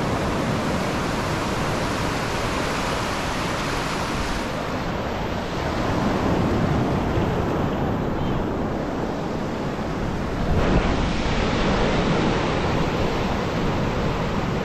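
Shallow surf breaking and washing up a sandy beach: a steady rush of water that swells louder as waves come in, about five and a half and about ten and a half seconds in.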